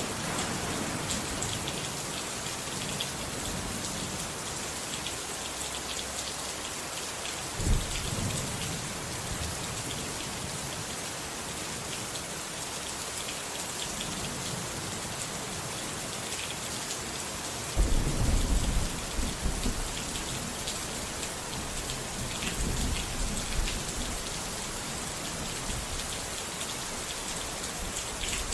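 Steady rain with thunder. A short, sharp rumble comes about a quarter of the way in, and a longer, louder rolling rumble comes past the middle, trailing off in a few weaker rolls.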